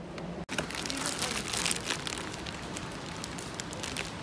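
Plastic snack-bag wrapper crinkling as it is handled, with a cluster of sharp crackles over the first couple of seconds and scattered ones after, over a steady background hiss.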